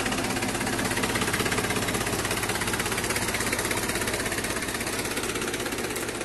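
Diesel tractor engine idling with a steady, even beat.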